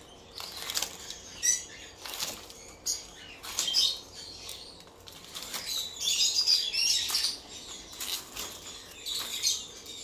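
Dried palm leaf being stripped and torn by hand, a dry rustling rip about every second, with lovebirds chirping repeatedly behind it.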